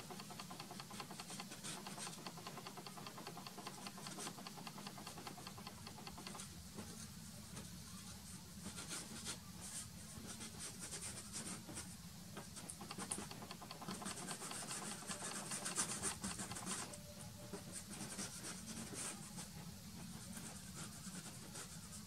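Soft pastel stick scratching and rubbing across gritty pastel-primed board in quick, repeated strokes, faint and dry, a little busier in the middle stretch.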